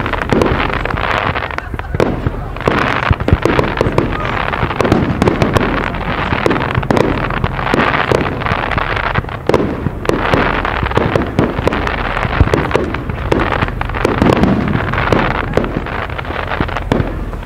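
Fireworks display in full swing: aerial shells of up to 3-inch calibre firing and bursting in rapid succession, many sharp bangs over continuous crackle.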